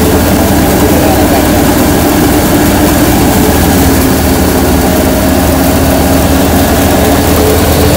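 Belt-driven grain thresher running steadily under load, a loud continuous machine drone from its drum and drive that does not change.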